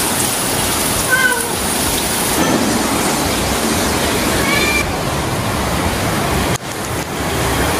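Steady heavy rain falling, an even hiss, with two brief faint high-pitched calls, one about a second in and one near the middle.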